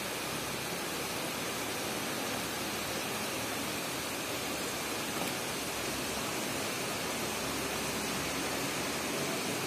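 Steady rushing of the Kalu Ganga's muddy water running fast and high in flood.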